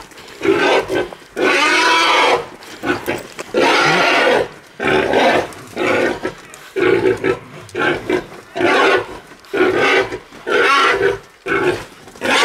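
Wild boar squealing in loud, harsh cries, one about every second, while caught and held by pig dogs.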